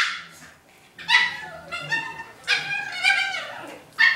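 Two small dogs play-fighting, giving short high-pitched yips and barks in repeated bursts, with a longer run of yapping in the middle.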